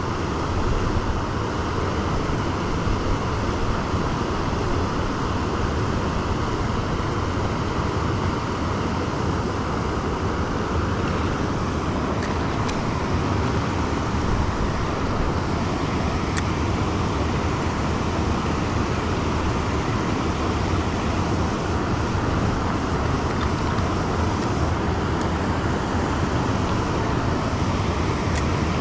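Steady rush of a river running over rocks and a low weir.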